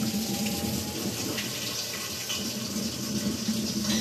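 Electrolux front-loading washing machine running a tub-cleaning cycle, water running into the drum as a steady rush over a low steady hum; the machine is working again after its no-power repair.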